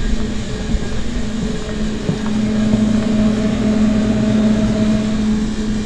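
Steady machine hum of an open refrigerated display case, with a higher tone joining in about halfway through and fading near the end.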